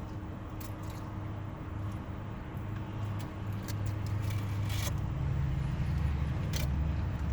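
Low rumble of road traffic, growing louder in the last couple of seconds as a vehicle passes close by, with a few short clicks and rustles over it.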